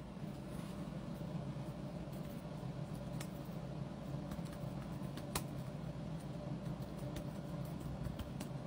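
Steady low room hum, with two faint sharp clicks about three and five and a half seconds in.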